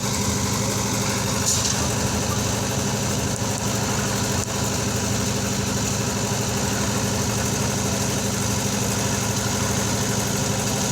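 Concrete mixer's engine running steadily at an even, unchanging speed.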